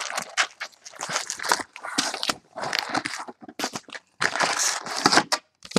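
Foil-wrapped trading card packs rustling in irregular, stop-start bursts as they are pulled out of a cardboard hobby box and stacked, with cardboard rubbing and scraping.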